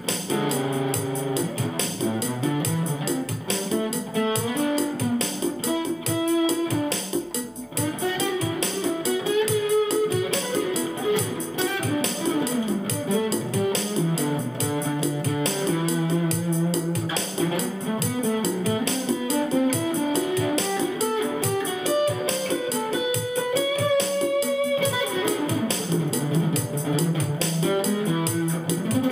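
Instrumental guitar music: an acoustic guitar played through a Bonsai overdrive pedal and a ten-watt Cube-10 amp, picking a melody over a steady beat.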